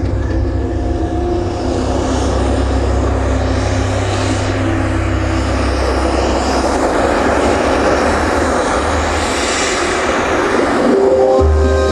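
A loud rushing, engine-like roar over a low rumble, swelling to a peak near the end, with a few held music notes. It is a sound effect in the show's soundtrack, played over large outdoor loudspeakers between passages of music.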